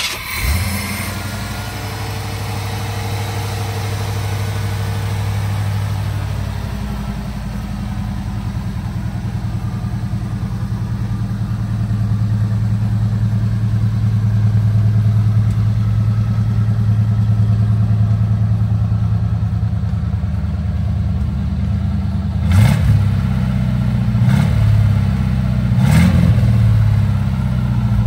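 1981 Jeep Scrambler CJ-8's engine, just started, idling steadily, then blipped three times in quick succession near the end.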